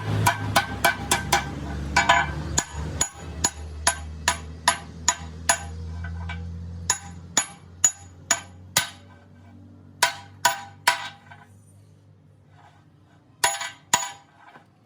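Hammer striking metal in a series of sharp, ringing blows about two a second, coming in clusters that grow sparser towards the end. A low machine hum underneath fades away in the first half.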